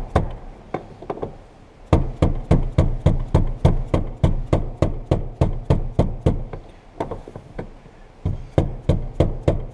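Hammer taps on the fuel pump assembly's retaining ring to tighten it and seat the gasket: quick, even knocks about four a second, in two runs with a short pause between.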